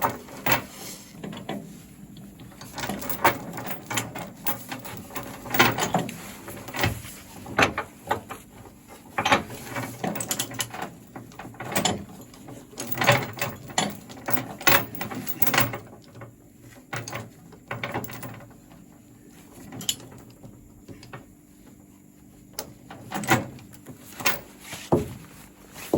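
Steel tie-down chains clanking and a chain binder being worked to tighten them, in irregular metallic clicks and clanks, as an excavator is chained down on a trailer.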